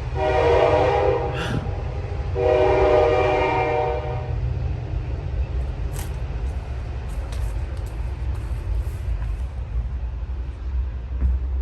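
Train horn sounding two long blasts, the second a little longer than the first, over the steady low rumble of a passing train that carries on after the horn stops.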